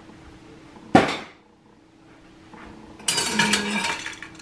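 A single sharp knock about a second in, then metal kitchen utensils clattering together from about three seconds in as a handful is lifted out of a utensil crock.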